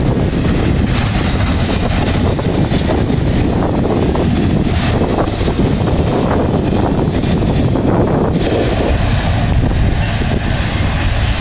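Freight train cars loaded with truck trailers rolling past, a steady dense rumble of wheels on rail, with strong wind buffeting the microphone.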